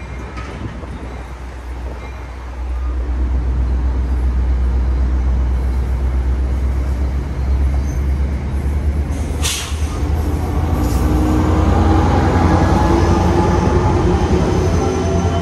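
NJ Transit passenger train rolling past close by, its coaches making a steady low rumble that grows louder a few seconds in. From about ten seconds in, the diesel locomotive comes past, adding a steady engine drone with humming tones. There is one sharp click about halfway through.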